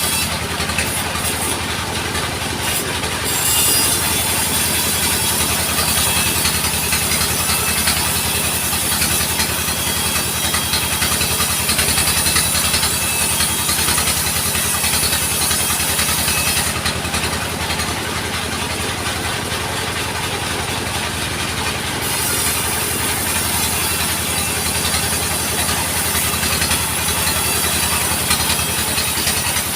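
Sawmill machine running steadily with an engine hum, its saw cutting through timber.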